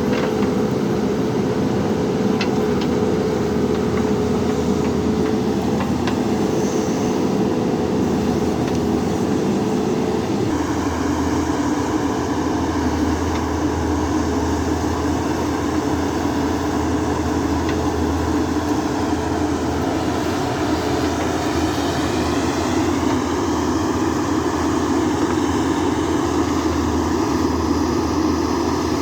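JCB backhoe loader's diesel engine running steadily as the machine works. Its note changes about ten seconds in.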